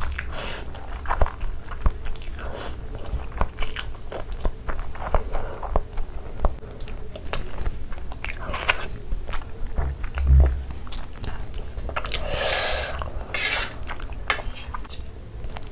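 Close-miked mouth sounds of chewing a mouthful of masala Maggi instant noodles: many wet smacks and clicks, with a dull thump about ten seconds in.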